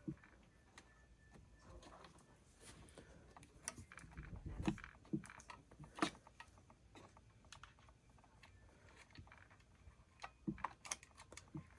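Faint, scattered clicks and light taps from hands working ignition wires and small parts through a chainsaw's housing.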